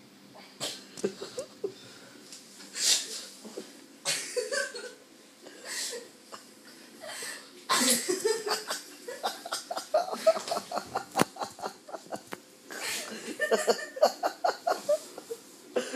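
People laughing, the laughter turning into quick rhythmic bursts through the second half. Several short breathy hisses come before it.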